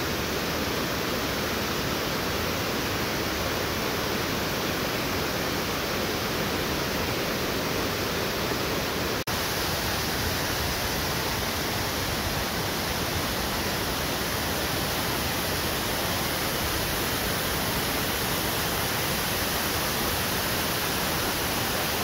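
Waterfall: a steady rush of water pouring over rock into a pool, with one momentary break about nine seconds in.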